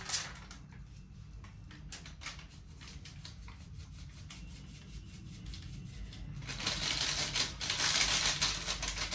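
Spice powder being shaken out of a spice container into a marinade: a fast, light ticking and rustling, faint at first and much louder from about six and a half seconds in.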